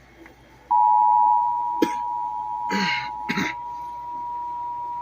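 Emergency Alert System two-tone attention signal (853 and 960 Hz together) starting abruptly about a second in and held steady, announcing a severe thunderstorm warning. A person coughs three times over the tone in the middle.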